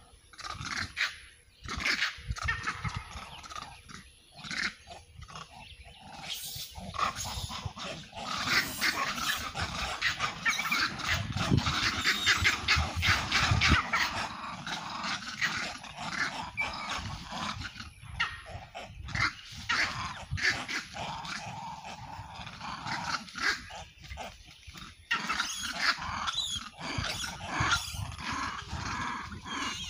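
Monkeys screeching and chattering during a fight, with many rapid calls that are thickest and loudest in the middle stretch and thin out into scattered calls later.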